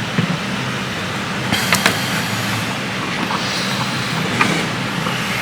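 Steady whirring of a fan or blower with a low hum, and a few light clicks of small tools about a second and a half in and again near the end.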